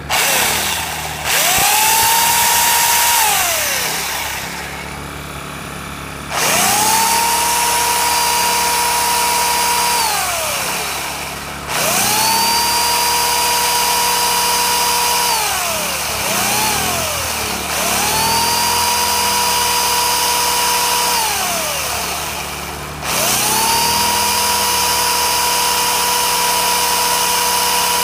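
Remington electric chainsaw switched on and off in five runs of a few seconds each, plus one brief blip. Each run is a motor whine that rises to a steady pitch, holds, then falls away as the saw winds down. A Ryobi RYI2200 inverter generator runs steadily underneath, powering the saw.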